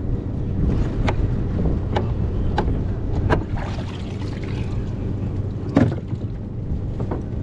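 Wind rumbling on the microphone and water slapping against a kayak's hull. Sharp splashes come every second or so for the first few seconds, and twice more later on.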